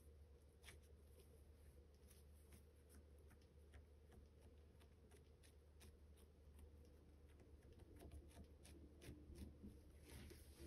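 Near silence: faint room tone with a steady low hum and scattered soft ticks and rustles.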